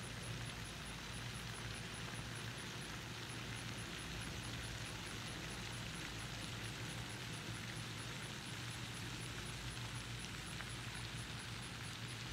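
Steady background noise with a low hum under it and a faint, fast, high-pitched ticking at an even rate, several ticks a second.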